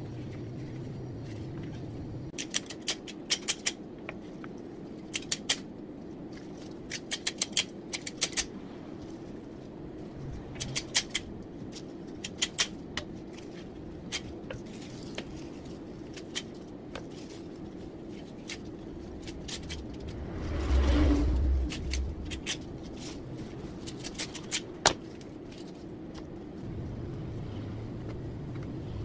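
Rose stems being trimmed and stripped: sharp snips and clicks in quick clusters, over a steady low hum. About two-thirds through there is a louder bump and rustle as the stems are handled.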